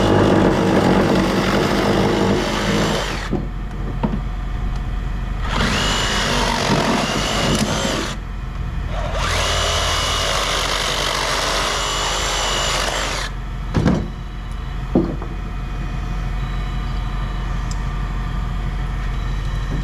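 A power tool running in three bursts of three to four seconds each, with a whine that rises as the second burst starts. A steady low engine hum runs underneath, and two sharp knocks come after the third burst.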